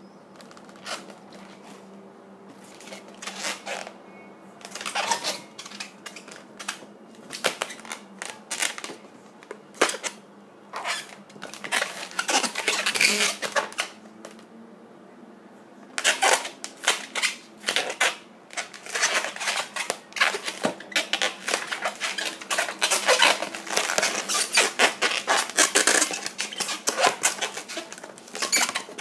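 Inflated latex modelling balloon squeaking and crackling as hands squeeze and twist it, in quick irregular runs of squeaks. It goes quiet for a moment about fourteen seconds in, then the handling gets busier.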